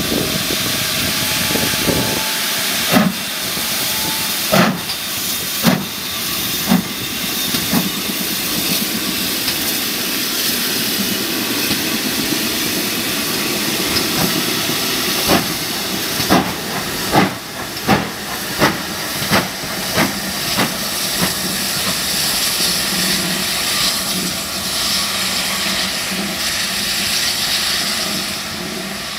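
Great Western steam locomotive moving off with a steady hiss of steam from its open cylinder drain cocks. Exhaust beats chuff out about once a second a few seconds in, and a second, slightly quicker run of beats comes about halfway through.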